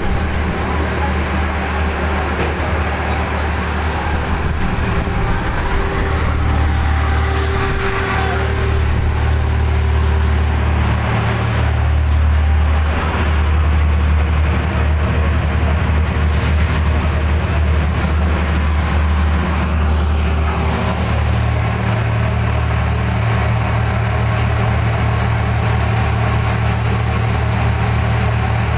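Fishing trawler's engine running with a steady low drone and a thinner hum above it that fades in and out.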